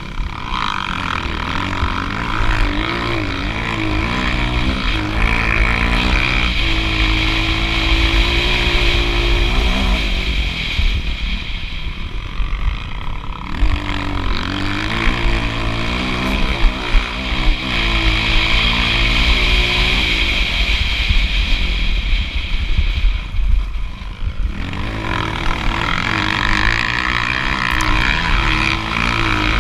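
Dirt bike engine heard from on board, revving hard and climbing in pitch through the gears again and again, with the throttle shut off twice, about a third of the way through and again past two thirds, before it picks up once more.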